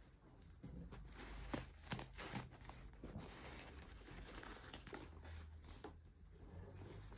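Soft rustling and crinkling of a cardboard tag and fabric band being handled and lifted off a folded polyester fleece garment, with a few light clicks, busiest in the first half.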